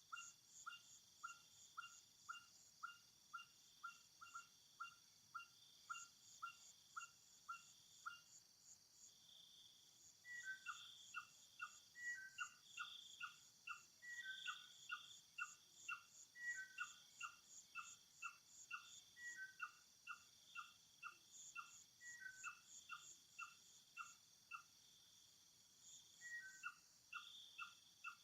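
Faint outdoor insect ambience: a steady high trilling of insects under a regular series of short chirping calls, about two a second. From about ten seconds in, the calls come in little groups, each led by a higher note.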